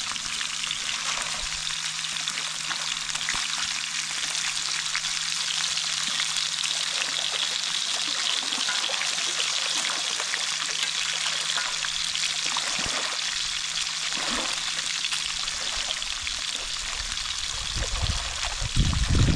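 Pieces of piau fish frying in hot oil in a frying pan: a steady sizzling hiss with many tiny pops. A low bump near the end.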